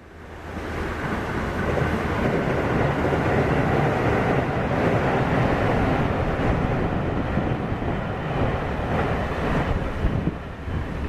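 Water pouring over a low river weir: a steady rushing that fades in over the first second or two.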